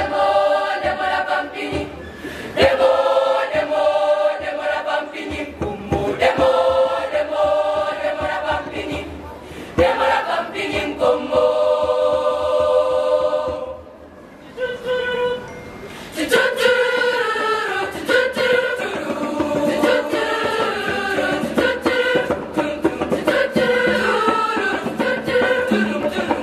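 A girls' choir singing a Zimbabwean choral medley in several-part harmony, in phrases with short breaths between them. A long held chord breaks off about halfway through, and after a brief pause the singing starts again and carries on.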